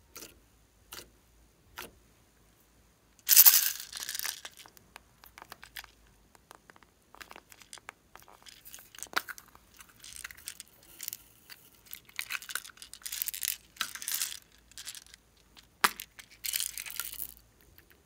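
Hands working glossy white slime in a glass dish, giving a series of crackling, crinkling squishes and sharp clicks, with small plastic containers being opened. Near the end comes a rattle as small beads and glitter are sprinkled onto the slime.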